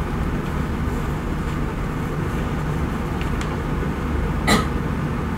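Steady low hum and rumble of room background noise, with one brief sharp noise about four and a half seconds in.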